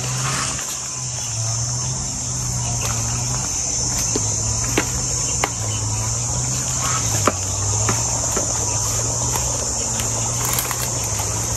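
Insects, crickets or similar, chirring as a steady high-pitched drone, with a few sharp clicks in the middle.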